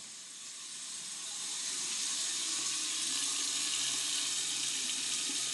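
Hot-water tap running steadily into a sink, getting louder over the first couple of seconds and then holding even.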